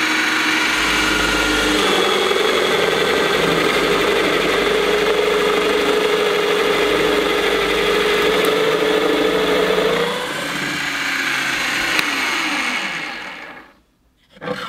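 Scheppach DP 60 710 W bench drill running with a Forstner bit boring into plywood, its gearbox noisy throughout the cut. About ten seconds in the level drops as the bit comes out of the cut, then the motor is switched off and winds down with a falling pitch, stopping shortly before the end.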